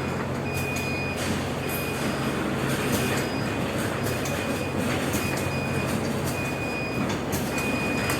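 Packaging machine running with a steady mechanical hum, and a thin high tone that cuts in and out at regular intervals.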